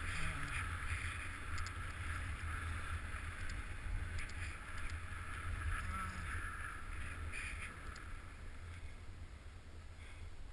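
Steady hiss of snow sliding under a downhill run through powder, over a low wind rumble on the camera microphone. It eases a little near the end.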